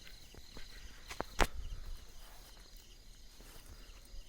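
Crickets chirping steadily in the evening fields, a thin high insect trill, with two sharp clicks a little over a second in, the second one loud.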